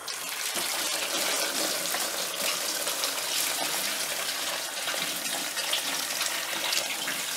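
Water pouring steadily into a large metal pot of soaked lentils, wheat and chicken: the water being added to the haleem.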